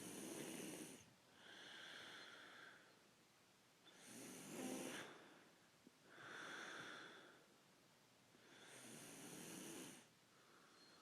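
A man snoring in his sleep, slow and regular: three rasping snores about four and a half seconds apart, each followed by a higher whistling breath.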